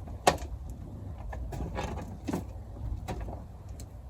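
Hands rummaging through gravelly potato soil: scattered knocks, scrapes and clatters, the loudest about a third of a second in, over a steady low rumble of wind on the microphone.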